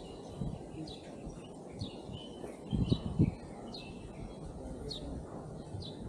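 Small birds chirping: short, high, downward-sliding chirps repeated about once a second over a low outdoor rumble, with a brief low thumping about three seconds in.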